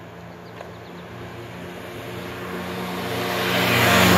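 Two mopeds running flat out in a drag race, the steady engine note growing louder as they approach and peaking as they pass close by near the end.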